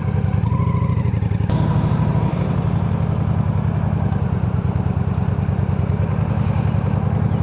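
Honda Shadow Aero's V-twin engine running with a steady low pulsing.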